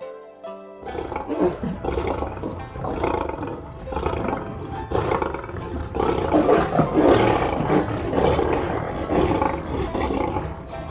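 Tiger roaring, a run of rough roars one after another that sets in suddenly about a second in and replaces soft background music.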